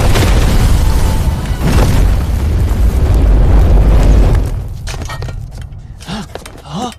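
A massive energy-blast explosion sound effect: a loud, deep rumbling blast that lasts about four and a half seconds and then dies away. Near the end come two short swooping sounds.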